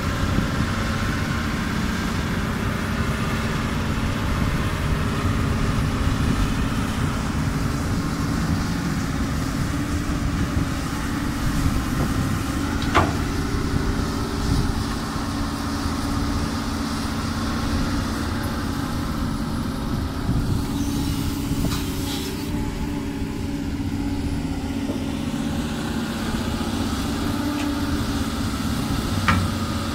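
Doosan DX200 excavator's diesel engine running steadily while it works, with a sharp clank about 13 seconds in and a few lighter clanks near the end.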